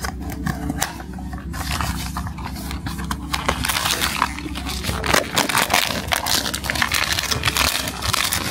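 Cardboard blind box being opened and a foil pouch pulled out of it, then the foil pouch crinkling and crackling in the hands, busier and louder in the second half.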